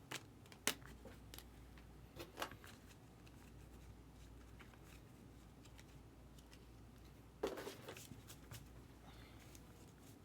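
Faint handling of trading cards: a few light clicks and taps in the first couple of seconds, then a short rustle about seven and a half seconds in.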